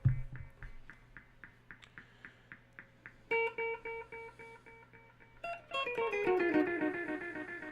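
Guitar played through a Caline Ghost Rain reverb-delay pedal. A plucked note repeats in quick echoes, about five a second, which fade over about three seconds. A second note follows with its own echoes, and in the last couple of seconds a run of falling notes leaves overlapping echo trails.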